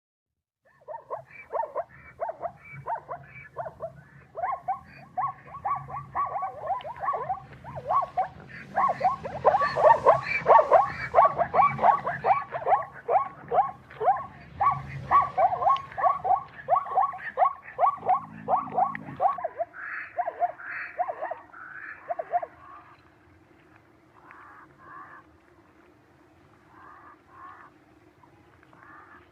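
A rapid series of short animal calls, two or three a second, with a low rumble underneath. After about 22 seconds it thins to a few softer calls over a steady low hum.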